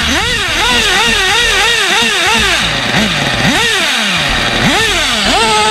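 Small two-stroke nitro (glow-fuel) engine of an RC car being revved on the remote's throttle: quick repeated blips, about three a second, for the first couple of seconds, then a few longer separate revs that rise and fall back to idle.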